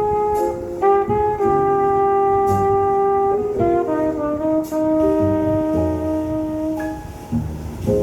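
Recorded jazz-style music played back on a stereo system: a brass instrument holds long notes that change pitch every second or so over a bass line, with no singing.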